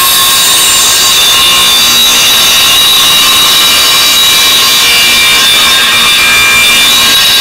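A 10-inch radial arm saw runs at full speed as it is pulled through a pine board, giving a steady, high whine.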